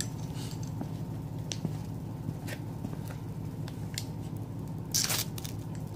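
A ferro rod struck once with a scraper about five seconds in: a short, harsh rasping scrape throwing sparks onto tinder. Before it, a few faint ticks over a steady low hum.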